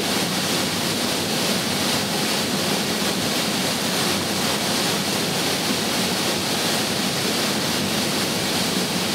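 Water pouring over an artificial river weir and crashing into the churning pool below: a steady, even rush of falling water.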